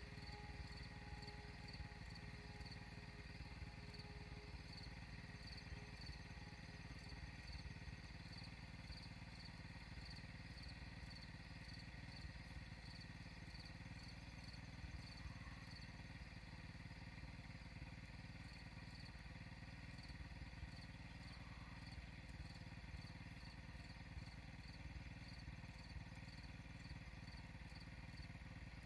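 Faint outdoor ambience: insects chirping in an even pulse about twice a second over a steady low rumble.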